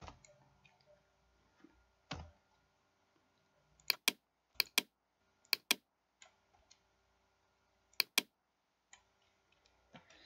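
Sharp clicks from a computer mouse and keyboard, mostly in quick pairs, several pairs in the middle of the stretch and single clicks near the start, over a faint steady hum.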